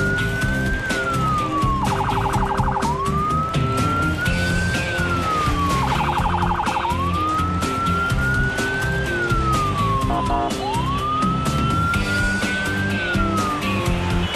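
Police siren wailing in slow rising-and-falling sweeps about every four seconds, twice broken by a short fast warble, over background music with a steady beat.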